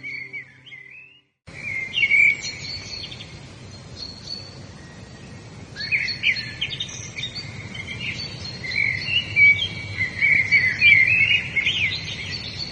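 Several wild birds chirping and singing in quick, overlapping calls over a steady background hiss. The sound drops out for a moment about a second in, then the birdsong resumes and grows busier in the second half.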